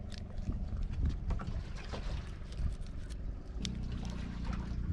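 A motorboat engine running steadily at low revs, its note shifting slightly about three and a half seconds in, with scattered light clicks over it.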